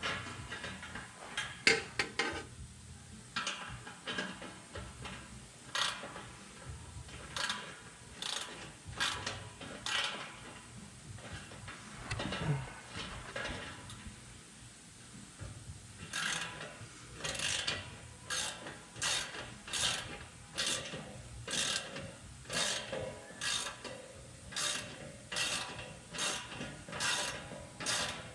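Hand socket ratchet clicking in repeated short strokes, tightening exhaust clamp and hanger bolts. The strokes are irregular at first and settle into a steady rhythm of about one a second in the second half.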